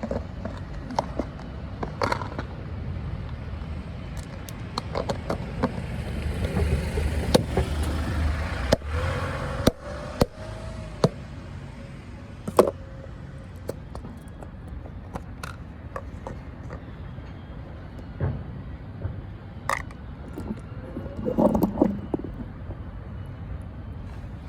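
Outdoor street sound with a vehicle passing, rising and fading about a third of the way in, among scattered sharp clicks, knocks and scrapes.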